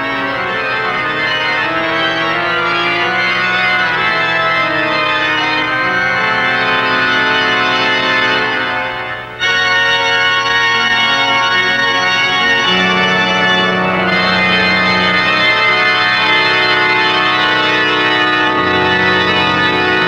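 Organ music playing slow, sustained chords over a shifting bass line; it fades briefly about nine seconds in, then comes back in suddenly at full strength.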